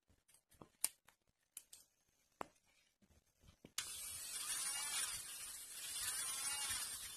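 Light clicks and taps as a bit is fitted into an electric nail drill's handpiece, then, about four seconds in, the drill is switched on and runs with a steady hiss and a thin high whine.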